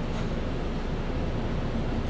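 MAN A20 Lion's City Ü city bus under way, heard from inside the cabin: a steady low rumble of engine and road noise.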